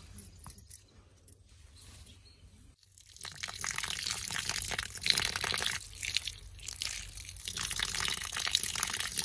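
Thin stream of water pouring and splashing onto small tomatoes in a wicker basket and the wet ground as they are rinsed by hand. It starts suddenly about three seconds in, after a few faint clicks.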